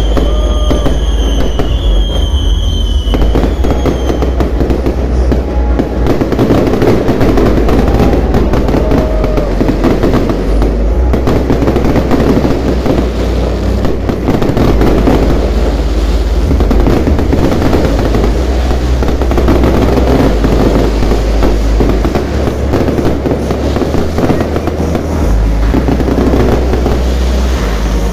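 Fireworks display going off close by in a dense, nonstop barrage of crackling and popping bursts.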